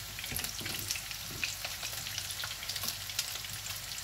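Gram-flour-battered lamb chops sizzling and crackling as they shallow-fry in oil in a frying pan, with a few soft knocks of tongs turning them in the pan in the first second or so.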